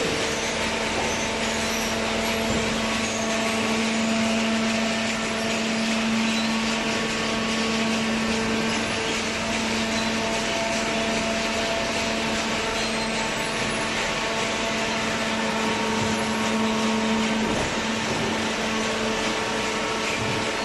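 Cardboard baler machine running: a steady motor hum with a continuous mechanical whir.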